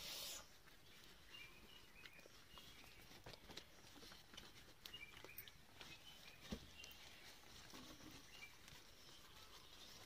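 Near-silent background with a brief rustle of banana leaves being handled right at the start, then scattered faint clicks and ticks, short faint high chirps, and one sharper click about six and a half seconds in.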